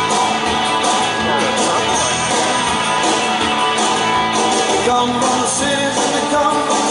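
Music with a singing voice, rock-style with guitar.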